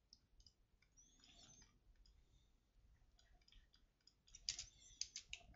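Faint computer mouse clicks: a few scattered ones, then a quick cluster of louder clicks about four and a half seconds in.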